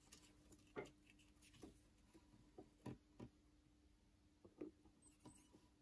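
Near silence, with a handful of faint scattered clicks and taps from hands handling a soldering iron against a push-pull potentiometer, over a faint steady hum.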